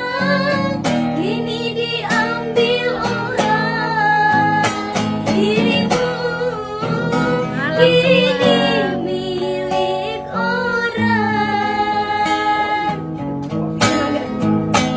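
Singing of a slow rock ballad over guitar accompaniment, the melody sliding and held in long phrases.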